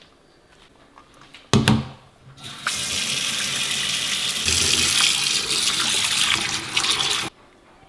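Kitchen tap running hard into a stainless-steel bowl of boiled beef kikil in a steel sink, splashing as the pieces are rinsed by hand; the water stops abruptly near the end. A short clatter comes about a second and a half in, before the water starts.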